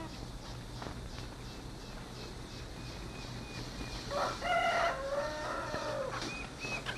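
A rooster crows once about four seconds in, a call of nearly two seconds that falls away at the end, over faint repeated high chirps.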